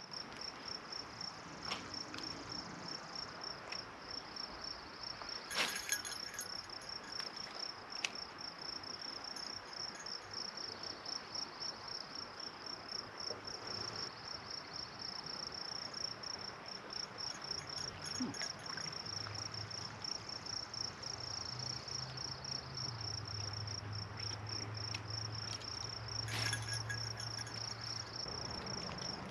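A high-pitched insect chirping in a fast, even pulse that never lets up. Two sharp clicks come about six seconds in and near the end, and a low rumble joins after about nineteen seconds.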